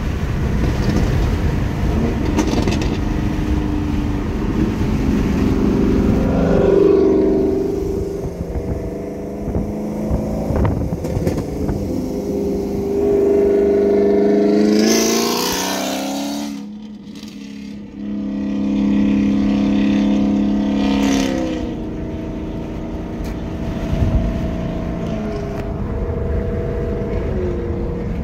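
Chevrolet Camaro with a big camshaft running alongside and accelerating hard, its engine note climbing in pitch several times. The sound drops away sharply about halfway through, then climbs again. Road and wind noise run underneath.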